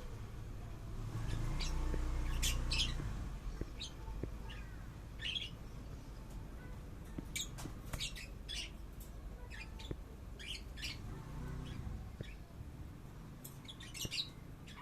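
Pet budgerigar and lovebird giving short, sharp chirps and squawks at irregular intervals, with a low rumble in the first few seconds.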